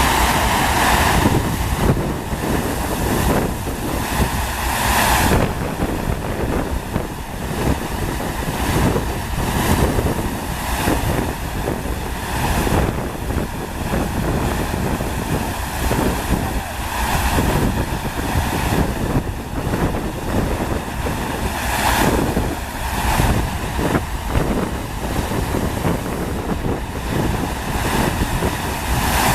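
Steady rushing water of a FlowRider surf simulator, a sheet of pumped water pouring over its ramp, with wind buffeting the microphone.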